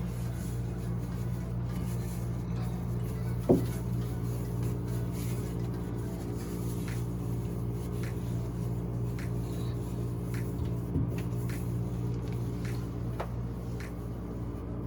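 Knocks from cleaning inside a refrigerator: one sharp knock about three and a half seconds in, lighter knocks later and faint light clicks, over a steady low hum.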